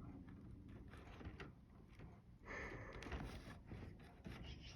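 Near silence: faint room tone with a few soft ticks and a brief faint noisy sound about two and a half seconds in.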